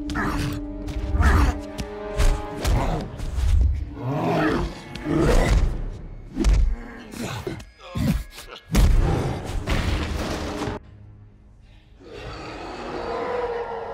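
Action-film fight soundtrack: orchestral score with heavy punch and body impacts and the Hulk's roars. The mix cuts off sharply about eleven seconds in, and the music swells back a second later.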